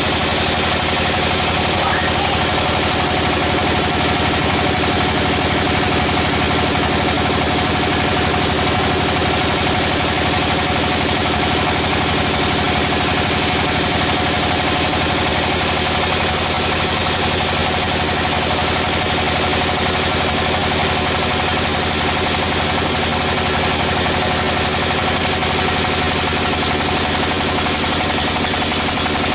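Sawmill machinery running steadily, an even engine-like hum that does not change.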